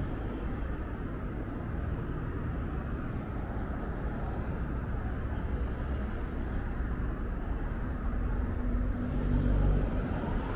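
Road traffic: cars and buses running past on a city street, a steady rumble that swells about nine seconds in as a heavier vehicle passes close.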